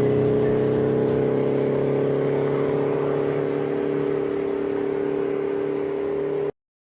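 Subwoofer under test with a replacement voice coil, playing a sustained, buzzy low droning note with several overtones; it cuts off suddenly near the end.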